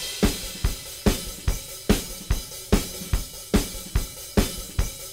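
Background music: a drum kit playing a steady beat of about two and a half hits a second, with cymbals and hi-hat over it.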